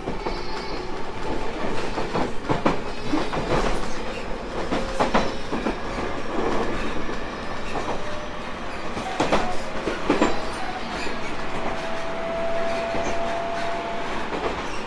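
Tobu 30000 series electric train running between stations, heard from inside the car: a steady rolling rumble of wheels on rail, with repeated clacks over rail joints and a thin whine held near the end.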